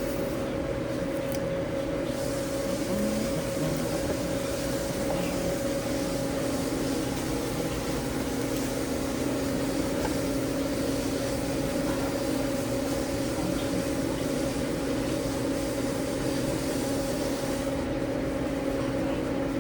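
Steady drone of commercial kitchen ventilation and equipment running, an even rushing noise with a constant low hum.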